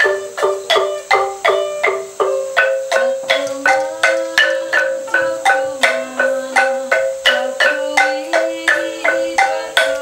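Traditional Dayak Kenyah music: a wooden xylophone struck in a steady repeating pattern of about three notes a second, with a plucked sape lute joining in, its lower melody entering about three seconds in.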